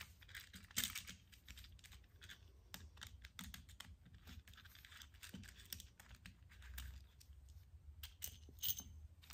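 Faint, irregular clicks and light scraping of a screwdriver turning the small screws of a scope mount's clamshell rings as the ring halves are taken apart.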